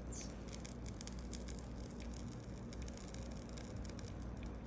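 A beef patty sizzles in a mini waffle maker: a faint, steady crackle of tiny pops over a low, steady hum.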